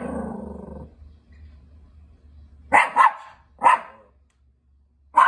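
Chihuahua barking at someone outside: a long bark tailing off at the start, then a quick double bark, a single bark, and one more at the end. This is watchdog alarm barking.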